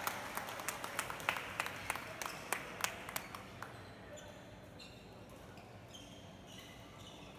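Scattered hand clapping in a sports hall, about three claps a second, tapering off over the first three seconds. It is followed by several short high squeaks of shoe soles on the court floor.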